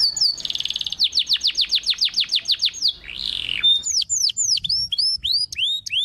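Domestic canary singing: a fast trill of repeated falling notes, a short harsh rasp about three seconds in, then a run of clear sliding whistles.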